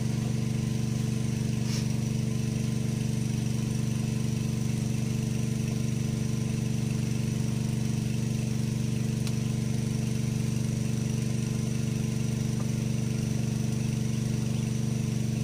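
An engine running steadily at constant speed, a low even drone that does not change.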